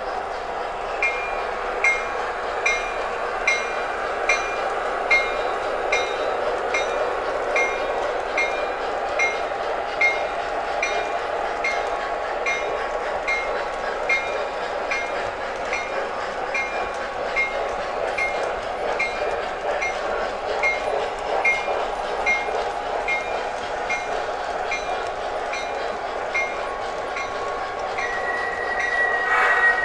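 MTH O scale model trains running on the layout track: a steady rumble of motors and wheels, with a sharp click repeating a little more than once a second. A brief high steady tone sounds near the end.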